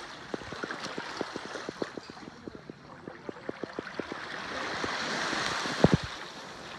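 Shallow seawater sloshing and lapping around wading legs at a boat's stern, with many small splashes and ticks. The water noise swells about four seconds in, and a sharp thump comes near the end.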